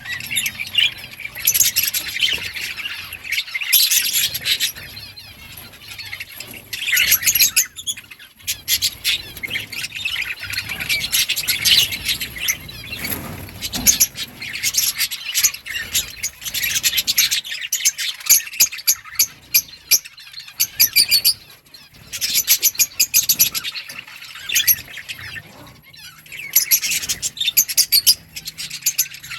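A group of budgerigars chirping and chattering, many quick overlapping calls in bursts with short lulls.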